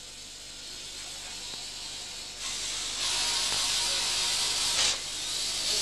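Compressed air hissing through a charging hose as a drill hole in the rock face is loaded with explosive. The hiss grows louder about two and a half seconds in, breaks off briefly near five seconds, then starts again.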